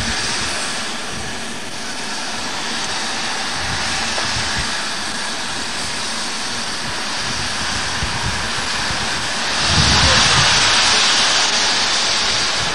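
Flying Scotsman, an LNER A3 Pacific steam locomotive, steadily hissing steam while standing on a turntable, with a louder surge of hiss and a low rumble about ten seconds in.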